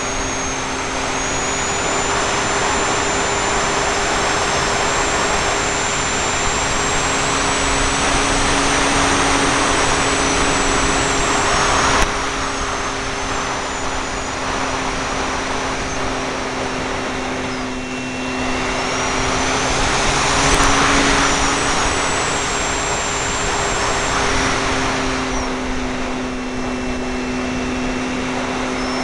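Parkzone F4F Wildcat RC plane in flight, heard from a camera taped to its airframe: the electric motor and propeller give a steady hum with a thin high whine, under a thick rush of air, swelling and easing a couple of times as the plane manoeuvres. A single sharp click about twelve seconds in.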